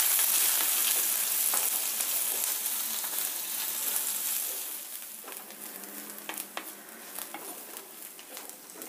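Sliced onions and green chillies sizzling in hot oil in a clay kadai while a spatula stirs and scrapes through them. The sizzle is strongest at first and fades steadily as the onions soften, with scattered clicks and scrapes of the spatula in the second half.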